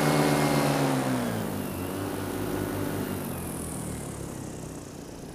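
Vittorazi Atom 80 two-stroke paramotor engine and propeller in flight, being throttled back: its pitch drops from about a second in and the sound fades steadily, with wind hiss over it.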